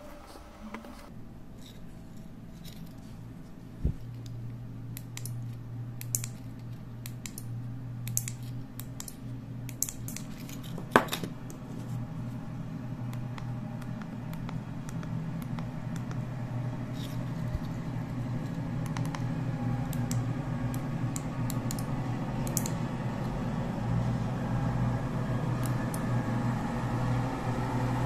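Scattered small clicks and scrapes of jumper wires, a breadboard and plastic remote-control fobs being handled, a few sharper clicks among them. Under them runs a steady low hum that grows slowly louder.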